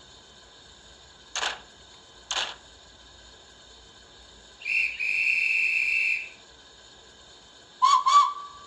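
Model steam locomotive sound decoder playing a Thompson A2 Pacific sound profile through a small speaker: two slow exhaust beats about a second apart, then a whistle of about a second and a half, and two short sharp sounds close together near the end.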